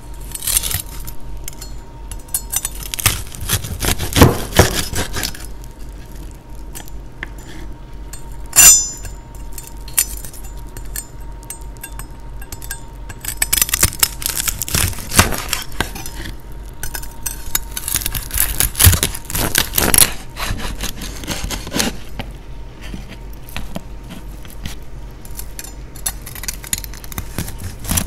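A chef's knife cuts through crispy pork belly on a wooden cutting board: the crisp skin crackles and crunches in several bursts, with sharp knocks of the blade on the board.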